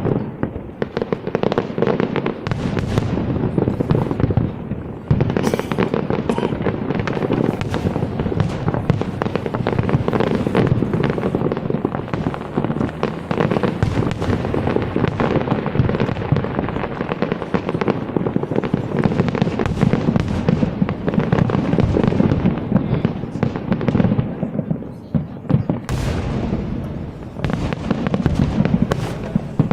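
Fireworks display: a dense, continuous barrage of bursts and crackle that rattles on without a pause.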